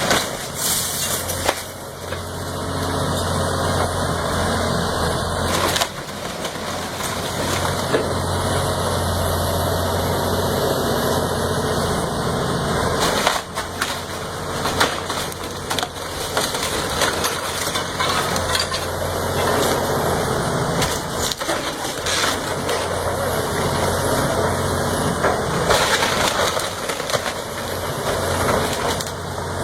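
A heavy machine's diesel engine running steadily under many sharp cracks and splintering crunches of wood being crushed and broken.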